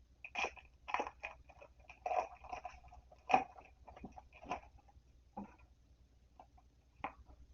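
Plastic packaging crinkling and crackling in short, irregular bursts as it is handled and opened. The crinkles come thickly for about five seconds, then only a few faint ones near the end.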